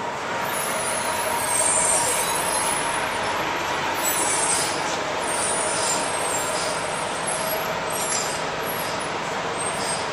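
Steady city traffic noise: the mixed sound of vehicle engines and tyres, with a faint steady whine running through it.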